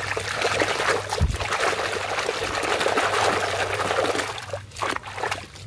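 Muddy water in a metal basin sloshing and splashing as a hand churns and scrubs a toy revolver under the surface. The churning is steady for about four and a half seconds, then gives way to a few separate splashes near the end.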